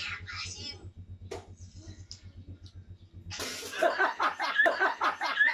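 Several people holding water in their mouths burst out laughing about three and a half seconds in, spraying the water out with a sudden hiss, then laughing and shrieking loudly. Before that, only faint voices and a low hum.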